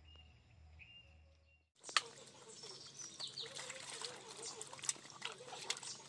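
Water splashing and sloshing in a metal basin as a plucked chicken is washed by hand, with many small sharp splashes, starting suddenly about two seconds in. Before that, faint bird chirps over a low hum.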